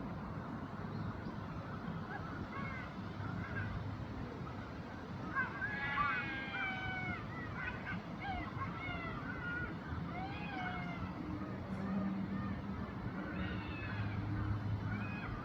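A series of pitched animal calls that bend up and down in pitch, starting about five seconds in, loudest around six seconds, and recurring several times until near the end, over a steady low hum.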